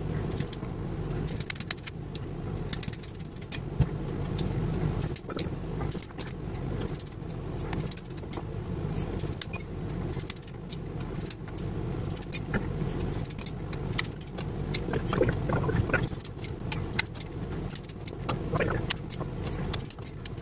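Copper rotor bars being pulled from the slots of a large three-phase electric motor's rotor with locking pliers: irregular metallic clinks and scrapes as the bars are gripped, worked loose and knocked against the steel core and one another, over a steady low hum.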